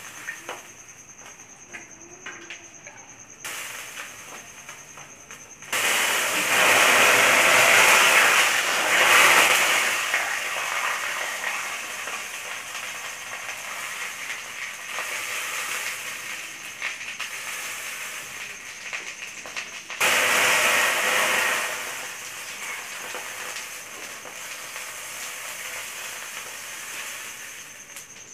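Seekh kababs on metal skewers sizzling and crackling on a hot grill pan. The sizzle grows much louder about six seconds in, eases off, and jumps up again about twenty seconds in.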